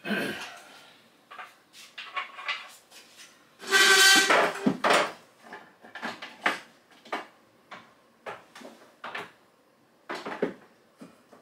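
Rummaging: a string of clicks, clacks and knocks as small hard objects are picked up, moved and set down, with a louder clatter about four seconds in.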